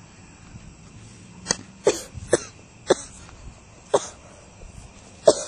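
A person coughing: six short, sharp coughs at uneven intervals.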